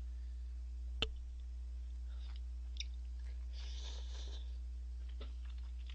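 A man slurping and chewing thick instant ramen noodles, with one short slurp just past halfway. A sharp click comes about a second in, and a steady low hum runs underneath.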